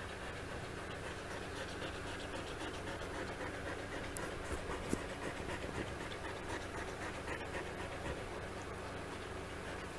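Dog panting close up, rhythmic breaths through an open mouth, with a single sharp click about halfway through.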